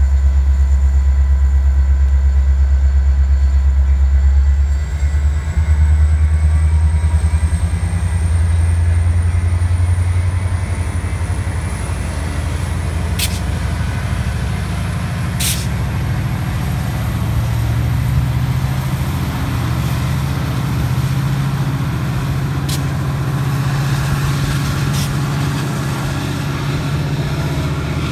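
Metra MP36PH diesel locomotive's EMD 16-cylinder two-stroke engine idling, then throttling up about four seconds in as the train departs, its drone shifting and a high whine climbing steadily in pitch. A few sharp clicks come in the second half.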